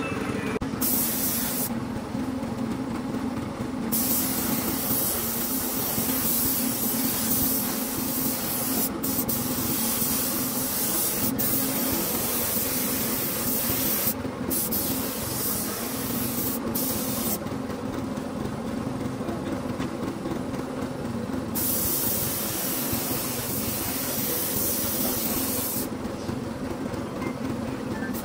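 Hissing noise that stops and starts several times in spells of a few seconds, over a steady low hum.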